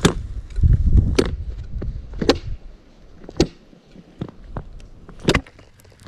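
A homemade ice chisel (pešnya) is jabbed into thin, snow-covered first ice to test it: five sharp blows about a second apart, the last after a longer pause. A low rumble runs through the first couple of seconds. The chisel only dents the surface and does not break through, which is the sign that the ice is strong enough to walk on.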